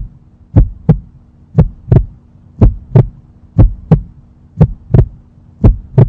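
Heartbeat sound effect: pairs of low thumps, lub-dub, about once a second, over a faint steady hum.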